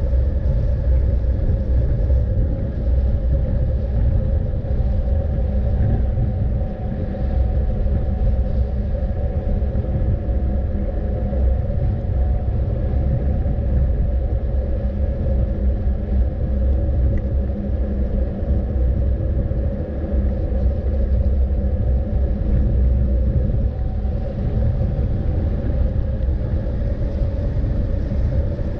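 A vehicle driving at a steady speed: a deep, continuous rumble with an engine hum held at a nearly constant pitch.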